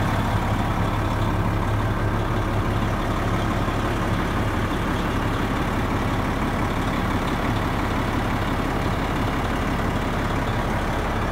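Detroit Diesel engine of a 1999 Oshkosh 4x4 plow truck idling, a steady low hum heard from inside the cab.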